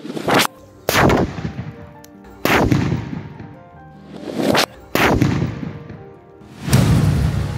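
Sutli bombs (jute-twine-wrapped firecrackers) exploding: about six sharp, loud bangs one to two seconds apart.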